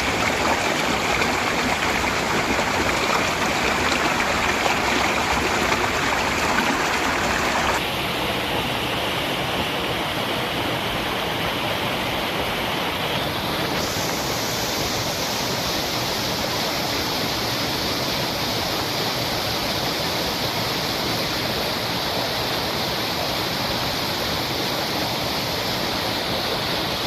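Water falling and splashing steadily at a small waterfall, a continuous rushing noise. Its tone changes abruptly about eight seconds in and again around fourteen seconds, as the recording switches between spots.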